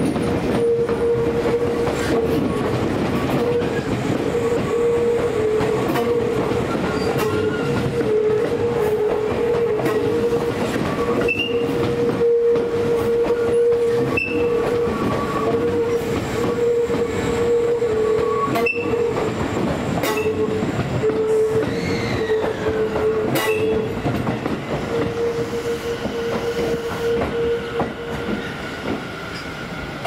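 Electric commuter train of the Tobu Tojo Line running past, wheels clattering over the rail joints with a few brief high squeals. Over it a steady tone with short breaks, shifting slightly in pitch now and then, carries on until near the end.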